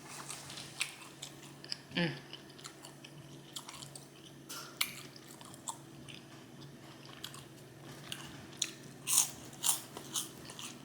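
Close-miked chewing of food, with many short wet clicks and smacks from the mouth and louder, crunchier bites near the end.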